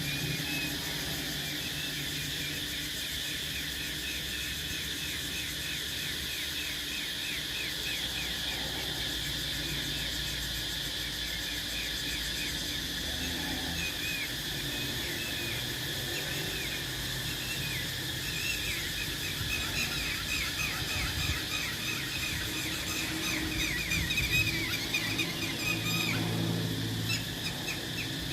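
Cicadas droning steadily with a high, shrill buzz, with a fast run of short, repeated chirping strokes over it. The whole chorus gets a little louder near the end, and a low hum comes and goes underneath.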